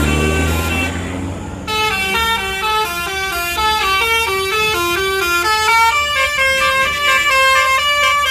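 Bus telolet horn, a multi-tone air horn, playing a fast tune of stepping notes from about a second and a half in. Before it starts, a bus engine's low rumble rises.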